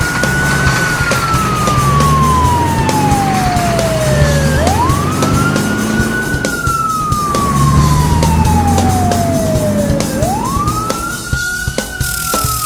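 Cartoon tow truck's siren sound effect: a wailing tone that rises quickly, then falls slowly over about four seconds, sounding three times over a low rumble.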